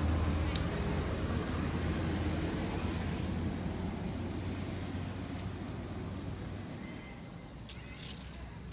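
An engine's low, steady drone, slowly fading, with a few faint clicks near the end.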